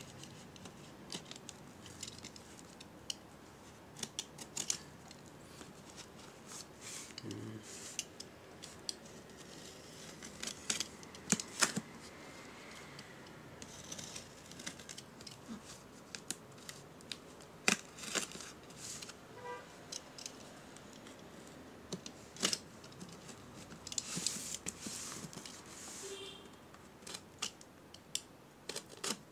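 Utility knife slicing through plastic packing tape and cardboard on a shipping box: scratchy cutting strokes mixed with many scattered sharp clicks and taps.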